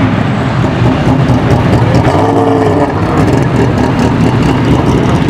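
Race car engine noise: a loud, steady drone, with one brief rise and fall in pitch between two and three seconds in.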